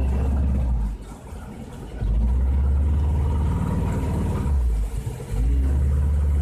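Wind buffeting the microphone on a moving boat: a heavy low rumble that drops away about a second in, returns, and dips again briefly near five seconds.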